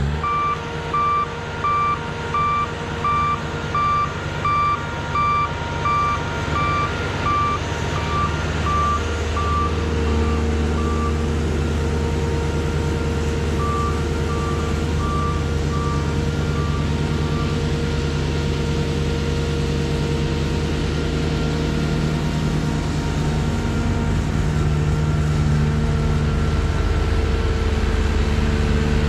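Trackless MT6 sidewalk tractor running, its engine droning steadily and growing a little stronger about ten seconds in. Its backup alarm beeps steadily, a bit more than once a second, for the first ten seconds or so, and again for a few seconds midway.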